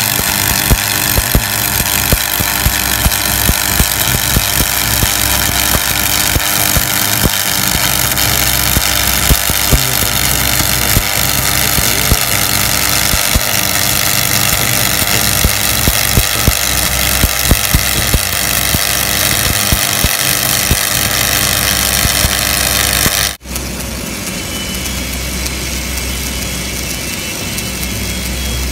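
Shielded metal arc (stick) welding along a steel corner joint: a loud, steady crackling sizzle of the arc with frequent sharp pops. About 23 seconds in it cuts abruptly to a quieter welding sound heard over a low steady hum.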